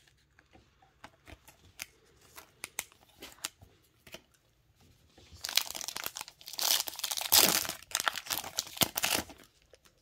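Scattered light clicks, then a trading-card pack's plastic wrapper being torn open, crinkling and tearing for about four seconds from roughly halfway in.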